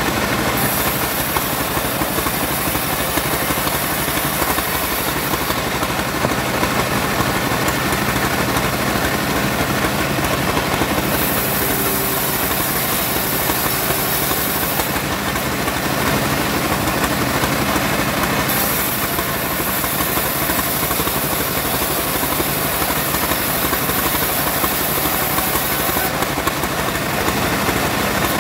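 Homemade bandsaw mill running steadily while its blade saws sengon wood. A high hiss from the cut comes and goes in long stretches several seconds each.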